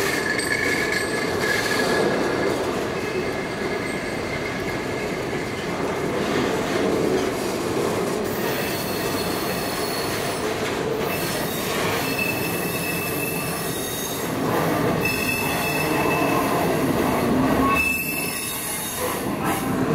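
Freight train of auto carrier cars rolling past with steady wheel-on-rail rumble; high-pitched wheel squeal comes and goes from about halfway through.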